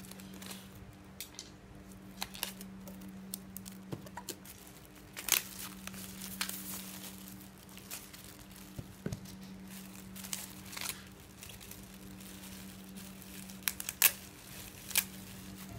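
Plastic packaging crinkling and rustling as it is handled and torn open, in irregular sharp crackles, loudest about five and fourteen seconds in. A steady low hum runs underneath.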